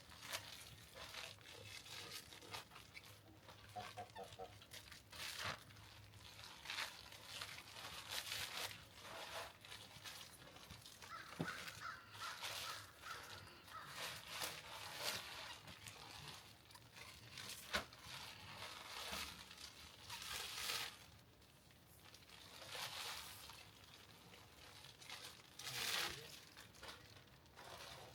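Plastic shrink-wrap poultry bags crinkling and rustling in irregular swishes as they are opened and pulled over dressed chickens.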